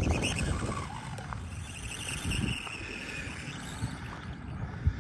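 SkyRC SR5 1/4-scale electric RC dirt bike running across the dirt at a distance, its motor giving a thin high whine that fades out about three and a half seconds in. Wind buffets the microphone, heaviest in the first second.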